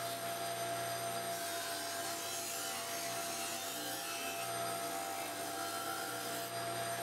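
Benchtop disc sander running with a wooden leg blank pressed against the abrasive disc, grinding off the corners to round the end. A steady motor hum lies under a continuous rasping of wood on sandpaper; the low part of the hum drops away and returns a few times as the piece is worked.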